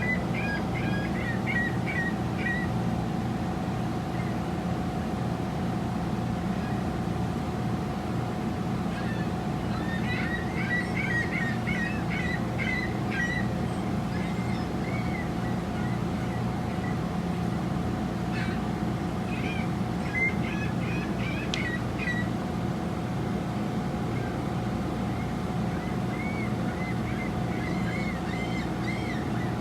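A steady low mechanical hum with one held tone throughout, and four short bursts of bird-like chirping over it.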